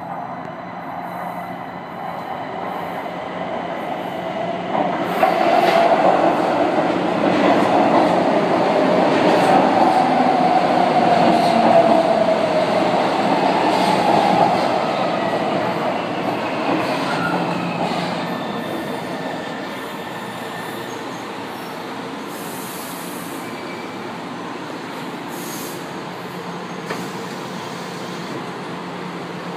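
São Paulo Metro train running along an elevated concrete viaduct toward the station, growing louder and loudest through the middle, with a whine that falls in pitch as it slows. It then settles to a steady lower hum.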